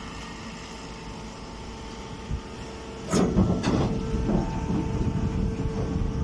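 Mini hay baler machine running with a steady hum. About halfway through, a couple of sharp knocks start a louder, rougher mechanical clatter that keeps going.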